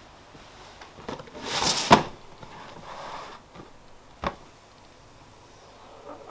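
Kitchen handling sounds: a short rustling swish that ends in a sharp knock about two seconds in, then a second sharp knock a couple of seconds later.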